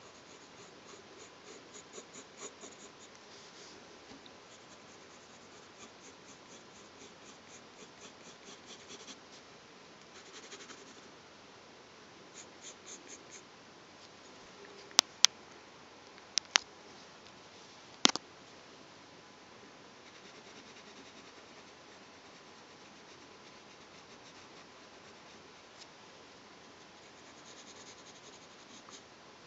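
Graphite pencil scratching on paper in bursts of quick short strokes as lips are sketched. About halfway there are four sharp clicks, louder than the drawing.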